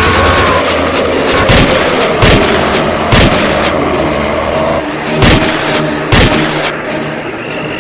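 Pistol gunshots, about ten sharp shots fired in two volleys: the first from about one and a half to four seconds in, the second from about five to seven seconds in.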